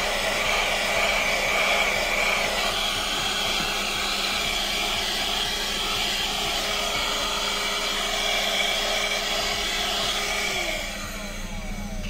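Piranha PVC-4005 12-volt cigarette-lighter car hand vacuum running steadily, its nozzle drawn over footwell carpet. About ten and a half seconds in its motor falls in pitch and winds down as it is switched off.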